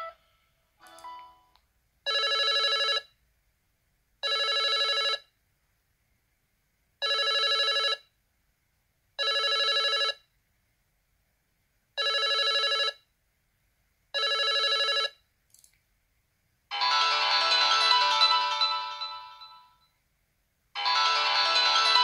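LG Q7 smartphone ringtones playing through its speaker. First comes a warbling electronic ring in one-second bursts, sounding in pairs six times. Then a different, fuller chiming ringtone swells and fades, and begins again near the end.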